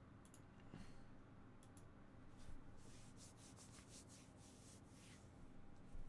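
Near silence: faint room tone with a few soft clicks and rustles.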